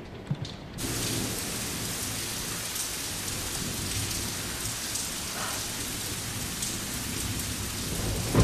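Heavy rain pouring down, starting suddenly about a second in and holding steady.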